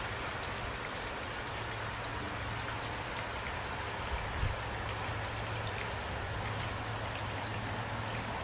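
Steady rain falling, with individual drops heard as scattered faint ticks and a low steady rumble underneath.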